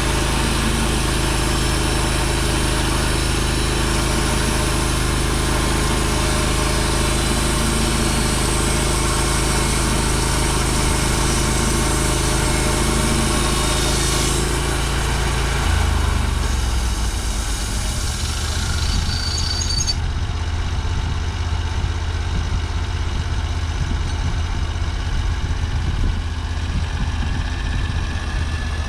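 The engine of a TimberKing bandsaw sawmill runs steadily under load as the band blade cuts a flitch off a yellow pine log, with a high hiss from the cut. About halfway through, the cutting hiss drops away and the engine settles to a lower, rougher idle, as the cut is finished.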